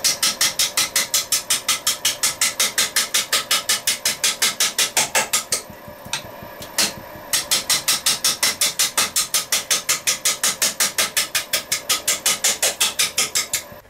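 Turning gouge cutting a spinning winged pine blank on a wood lathe: an interrupted cut, the edge striking the wood's wings in a rapid, even clatter of about seven hits a second and cutting air in between. The clatter stops for about a second and a half midway, with one lone hit, then starts again.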